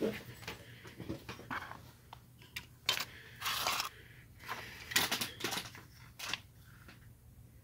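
Handling noises as a length of stranded wire and a thermal wire stripper are picked up and moved on a bench cutting mat: scattered clicks and taps with a few short rustles, dying down near the end.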